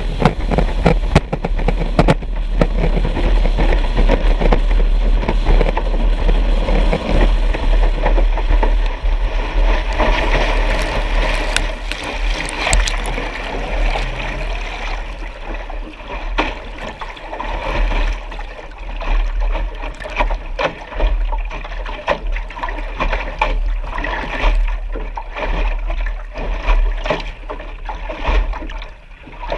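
Choppy lake water splashing and sloshing against a vintage hydroplane's wooden hull and washing over its deck, with a steady low rumble underneath; the splashing is heaviest about a third of the way in.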